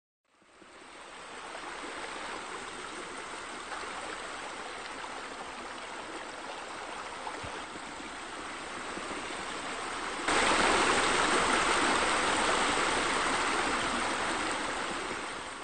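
Steady running water of a spa spillover pouring into a pool. It fades in at the start, turns abruptly louder about ten seconds in, and fades out at the end.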